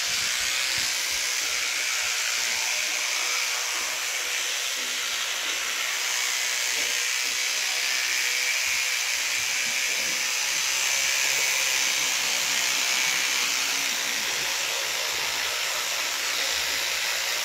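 Electric toothbrush running steadily in the mouth during brushing: an even, unbroken hissing buzz.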